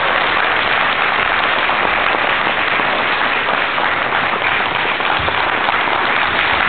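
Large audience applauding steadily: many hands clapping together in a dense, even wash.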